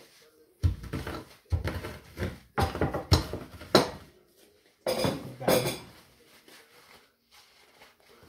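Oreo biscuits wrapped in a paper towel being crushed on a kitchen counter with a wooden rolling pin. About eight knocks with crunching crackle come in quick succession over the first six seconds, then stop.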